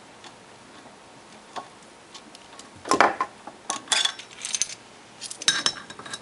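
Sharp metal clinks and knocks from a steel three-jaw gear puller and a freshly pulled ball bearing being handled, several with a short high ring. They start about three seconds in and come in quick clusters.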